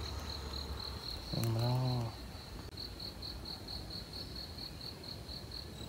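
An insect calling, a high chirp repeating steadily about four times a second. A man briefly voices a short sound about a second and a half in.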